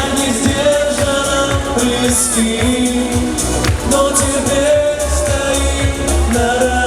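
Instrumental outro of a pop ballad, with no lyrics sung: a held melody line with some gliding notes over a steady beat. Heavier bass comes in about five seconds in.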